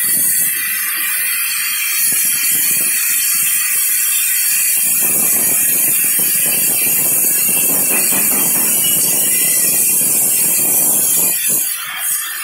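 Glassworking gas torch flame hissing steadily as it heats a glass tube on a glass lathe. A lower rushing joins the hiss from about five seconds in, and the sound dips briefly shortly before the end.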